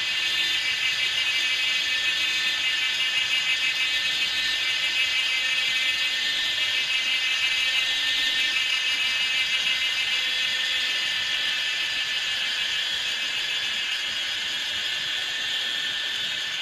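A steady, high-pitched buzzing drone that holds unbroken and eases slightly near the end.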